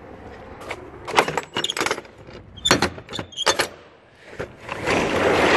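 Latch handle on a box truck's rear roll-up door being worked, clanking and rattling metal in two bouts of sharp clatters. Near the end the door starts rolling up with a building, rushing rattle.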